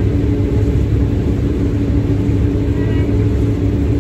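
Combine harvester running while cutting soybeans and unloading into a grain cart, heard inside the cab: a steady low drone with a constant hum.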